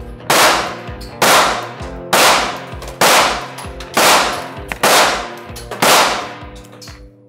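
Pistol shots fired one at a time at a steady pace, about one a second, seven in all, each shot ringing out with a long echo in the indoor range; the last comes about a second before the end.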